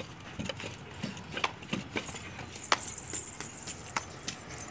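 A small child's quick footsteps in sandals on a concrete floor: a run of light, irregular taps.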